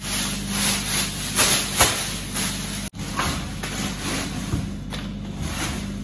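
Thin plastic bag and loose plastic packaging film rustling and crinkling as they are handled and gathered up, in irregular crackly bursts.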